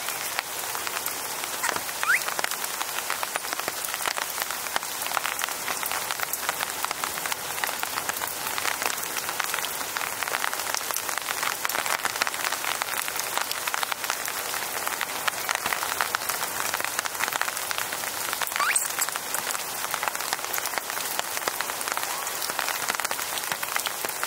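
Steady rain falling, with many separate drops pattering close by.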